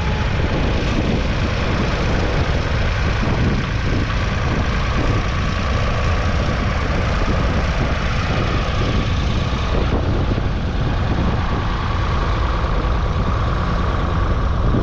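David Brown 770 tractor's 2.4-litre three-cylinder diesel engine running steadily at a constant note, heard close up.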